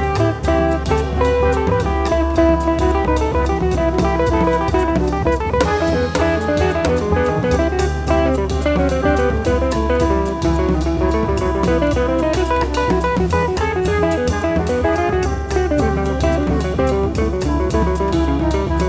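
Jazz group recording: a guitar plays a melodic line over electric bass and a drum kit keeping a steady beat with cymbals.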